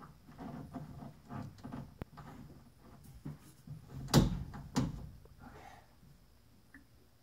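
Irregular knocks and bumps, the two loudest a little past halfway, then near silence.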